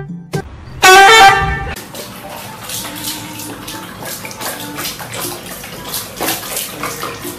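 A loud, honk-like pitched sound lasting about a second, about a second in. Then water splashing and slopping with small irregular knocks, from a kitten at a plastic basin of water on a wet floor.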